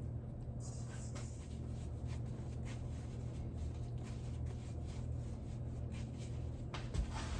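Soft rubbing and handling sounds of bread dough being shaped by hand, with a light knock about seven seconds in, over a steady low hum.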